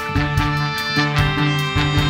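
School brass band with saxophones playing an arrangement of a rock song. Held horn chords sit over a repeating bass line and a steady drum beat.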